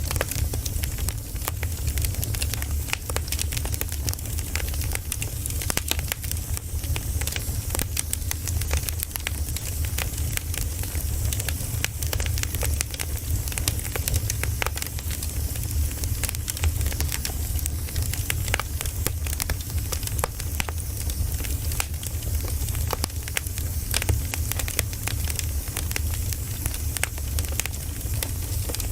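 Campfire burning steadily, with a dense, irregular run of small crackles and pops over a low, even rumble and a faint hiss.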